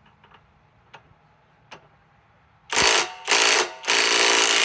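Kobalt sub-compact cordless impact wrench hammering on a torqued bolt in three bursts, the last one the longest, until the bolt breaks loose. A few light clicks come before it.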